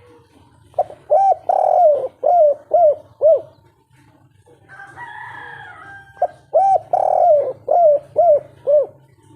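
Spotted dove singing its cooing song twice, each phrase a short note, a long drawn-out coo, then three short coos ending it: the three-note 'kuk 3' song type. Between the two phrases comes a brief rougher, higher sound.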